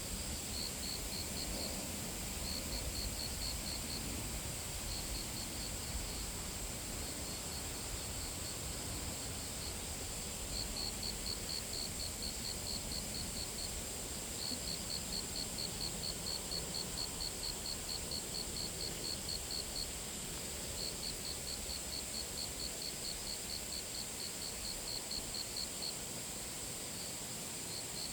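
An insect chirping in trains of evenly spaced high pulses, about four a second, each train lasting several seconds with short pauses between, over a steady high hiss.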